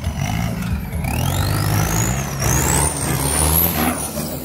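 Off-road 4x4's engine running under load, with a high whistle that climbs steeply in pitch from about a second in and fades near the end.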